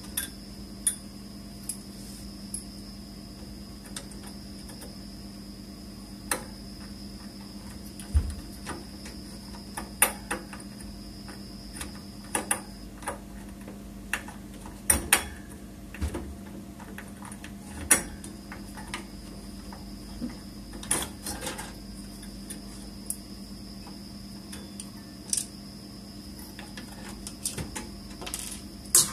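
Irregular light clicks and knocks of small plastic and metal parts being handled and fitted inside a Dell Inspiron 620 desktop case while the fans and heat sink are put back in. Under them run a steady low hum and a faint high whine, which drops out for a few seconds midway.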